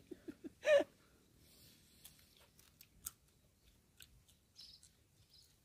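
A man laughing in quick short bursts that end in one loud burst about a second in, then scattered small crisp clicks and crunches as stir-fried grasshoppers are picked apart and eaten.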